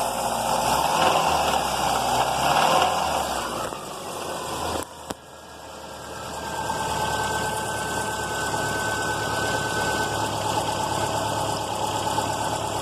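Subaru EJ flat-four engine revved for about four seconds, then dropping back, with a single sharp clunk about five seconds in before it settles to a steady idle. The knocking is the fault under suspicion: the title calls it rod knock from oil starvation, though the owner later suspects the timing belt tensioner.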